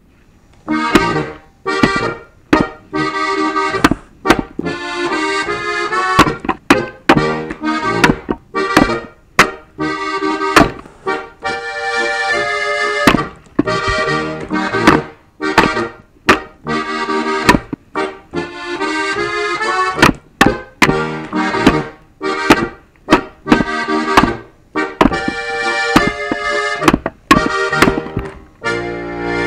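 Accordion music playing, cut through by frequent sharp axe strikes splitting firewood logs on a chopping block; the strikes are the loudest sounds.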